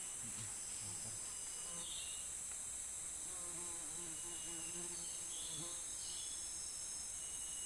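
Dense, steady high-pitched chorus of forest insects such as crickets.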